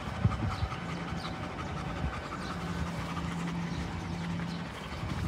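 German Shepherd dogs panting, over a steady low hum that drops out briefly now and then.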